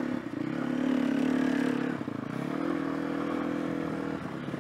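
Sherco enduro motorcycle engine running as the bike is ridden slowly through snow, its pitch dipping about two seconds in and then picking up again.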